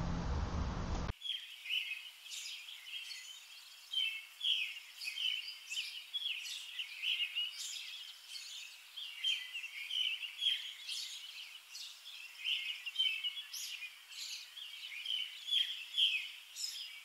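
Birds chirping: many short, high chirps in quick, continuous succession. They start about a second in, when a steady low background noise cuts off.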